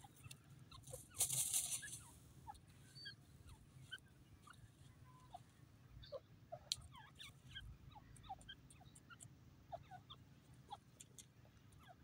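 Grey francolins giving soft, scattered short chirps and clucks, with a brief scratchy rustle about a second in.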